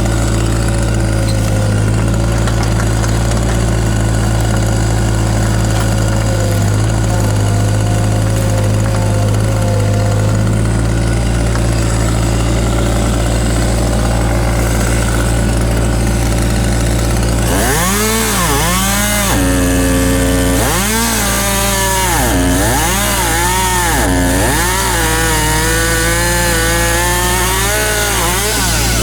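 Takeuchi TB016 mini excavator's diesel engine running steadily under load. Past the middle, the pitch starts rising and falling repeatedly, about once a second, as the hydraulics are worked.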